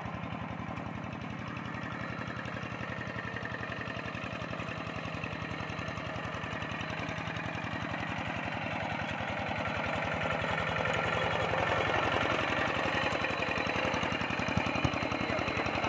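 Quick G1000 hand tractor's single-cylinder diesel engine chugging steadily under load as it pulls a plough through a flooded paddy, growing louder from about ten seconds in as it is heard up close.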